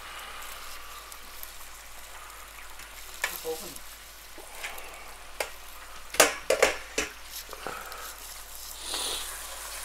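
Chopped onions sizzling steadily as they fry in hot oil in a nonstick pan, with a few sharp clicks around six to seven seconds in.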